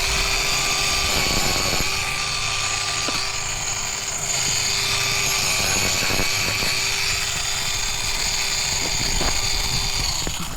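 Mini angle grinder running steadily against a miniature horse's hind hoof, a constant motor whine over a broad grinding hiss. It starts at once and cuts off shortly before the end.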